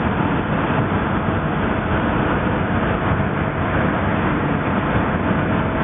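Timber-milling machinery running steadily while milling Douglas fir, a loud continuous mechanical noise with a faint steady hum in it.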